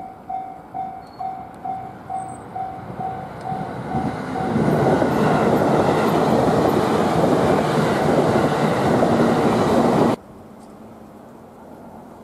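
A repeating beep, about three a second, over the low running sound of a JR Freight EH200 electric locomotive. About four and a half seconds in, a loud steady rush of locomotive noise takes over, then cuts off abruptly near the end.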